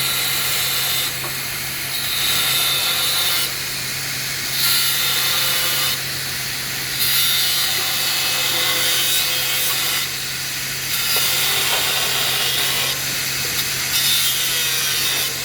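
A hacksaw blade cutting through galvanized iron pipe in steady back-and-forth strokes, about one stroke a second or a little slower, each stroke a loud rasp.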